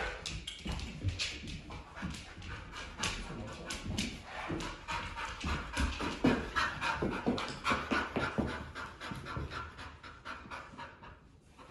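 Rhodesian ridgeback/pit bull mix panting hard and fast, about three to four breaths a second, easing off briefly near the end.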